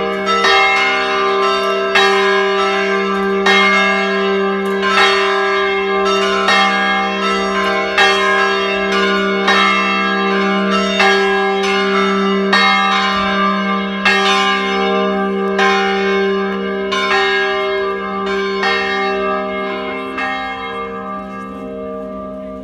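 Church bells ringing a steady peal, a strike about every 0.7 s, each note ringing on over a continuous low hum of the bells. The ringing fades toward the end.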